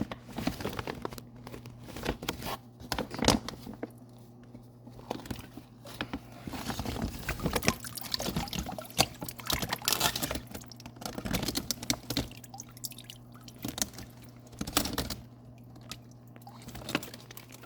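Seawater sloshing and dripping, with scattered knocks and clicks, as wet live rock is lifted and handled in a bucket of saltwater. The splashing is busiest about halfway through.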